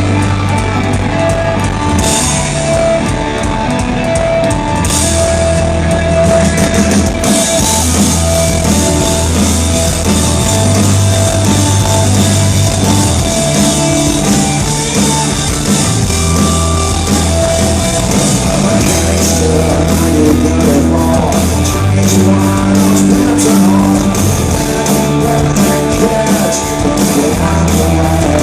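Punk rock band playing live: electric guitars, bass and a drum kit with cymbals, loud and continuous.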